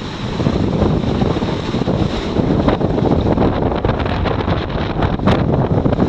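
Strong wind buffeting the microphone on a sailboat under way at sea, over the rush of waves. A couple of brief, sharper hisses stand out about two and a half and five seconds in.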